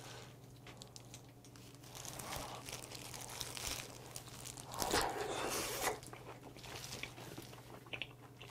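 Close-up mouth sounds of a person eating raw oysters: chewing, with one louder sound lasting about a second about five seconds in. Before that, a gloved hand picks an oyster out of a glass bowl.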